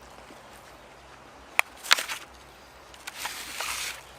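A sharp click, a short crackle and then about a second of rustling: food and its packaging being handled at the table.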